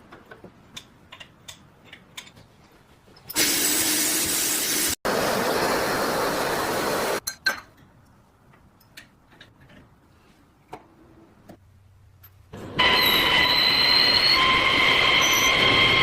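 Workshop restoration sounds: light clicks and taps of small parts being handled, a few seconds of loud rushing power-tool noise, then near the end a power tool motor running with a steady high whine.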